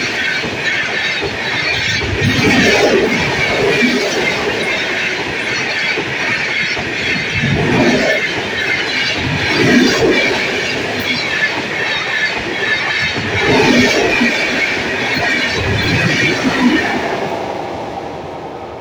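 Passenger train coaches running past at speed: a steady high hiss of wheels on rail over a rumble, with heavy clattering thuds every couple of seconds as the wheels go by. The sound fades away near the end as the last coach passes.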